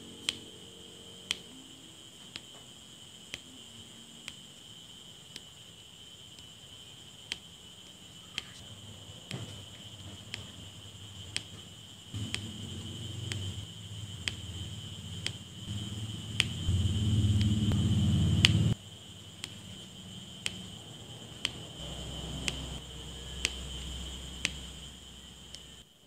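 Diamond painting drill pen tapping resin drills onto the sticky canvas: a light click about once a second, over a steady high-pitched ringing tone. A louder low rumble swells from about halfway and cuts off suddenly, and a softer low hum follows near the end.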